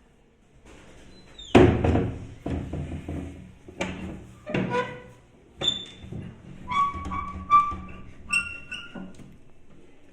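Door-opening sound effect: a loud thud about one and a half seconds in, then a run of knocks and clunks, with short repeated squeaks like a creaking hinge in the second half.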